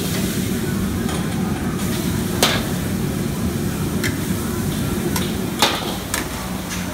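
Hokkien mee stir-frying in a steel wok over a high-pressure gas burner: a steady rush of flame and sizzling, with a metal ladle scraping and clanking on the wok. Two sharp clangs stand out, about two and a half and five and a half seconds in, among a few lighter knocks.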